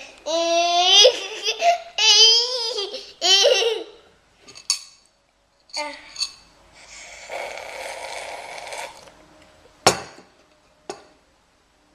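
A young child laughing in high-pitched bursts for about three and a half seconds, followed later by a couple of seconds of hissing noise and one sharp knock near the end.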